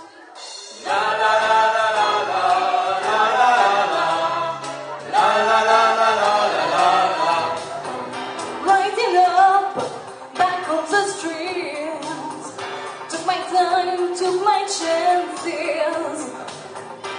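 A woman and two men singing together in harmony into microphones. About eight seconds in, the music changes to a different piece.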